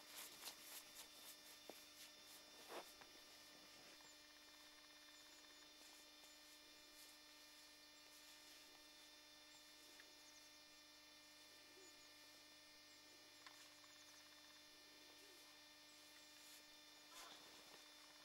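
Near silence with a faint steady electrical hum, and a few faint clicks in the first few seconds.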